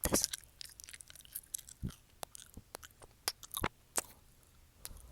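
Close-miked sticky mouth sounds of lips coated in lip gloss: an irregular series of sharp, wet lip smacks and clicks.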